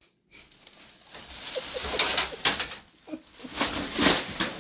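Plastic shopping bag crinkling and rustling in loud, jerky bursts as a cat caught in it thrashes and bolts.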